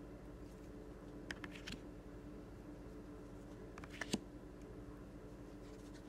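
Palm reading oracle cards being flipped by hand: short clusters of light clicks and rustles as a card slides off the deck, about a second and a half in and again about four seconds in, over a faint steady hum.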